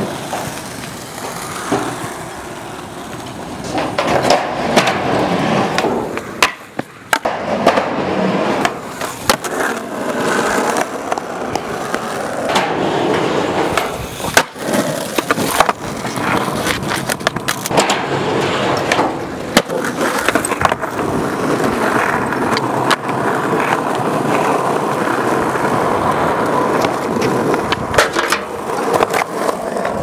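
Skateboard wheels rolling on rough asphalt, with repeated sharp clacks of the board popping and landing as tricks are done.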